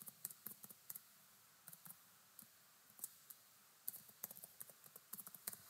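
Faint computer keyboard typing: irregular runs of quick keystroke clicks with short pauses between them.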